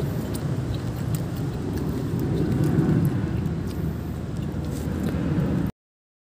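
Steady low outdoor rumble with faint scattered clicks, cut off abruptly to dead silence near the end.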